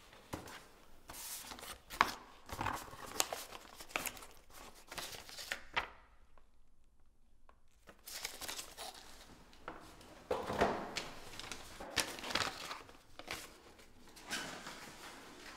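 Paper envelope being torn open and handled, with crisp rustling and crinkling of paper and banknotes, broken by a short hush about halfway through.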